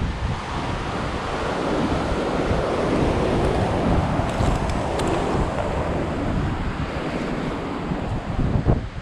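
Wind buffeting the microphone: a steady rushing noise with a gusty low rumble, and a few faint clicks about four to five seconds in.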